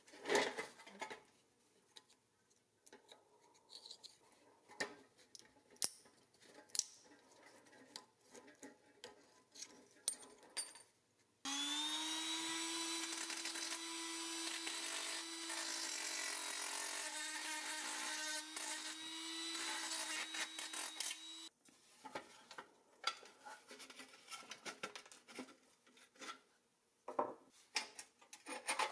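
Small cordless drill spinning a bit against the axle end of a rusty steel toy truck's wheel for about ten seconds, a steady whine that rises briefly as it spins up. Before and after it come light clicks and knocks of the metal toy and its rubber wheel being handled.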